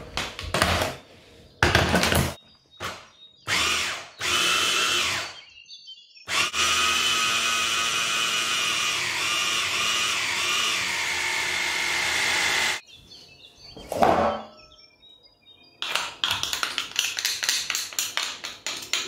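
Electric mini chopper run in a few short pulses, then steadily for about six seconds, grinding a meatball mix of minced meat, onion, pepper and breadcrumbs. Near the end a spatula and spoon scrape and tap the mixture out of the plastic bowl.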